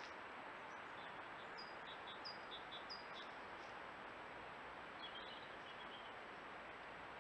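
Faint woodland songbirds over a steady hiss: short high chirps repeated through the first few seconds, then a brief warbling phrase about five seconds in.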